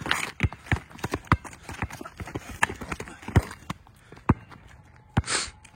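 A basketball bouncing on a hard court in a quick, irregular run of dribbles, with a short hissing burst near the end.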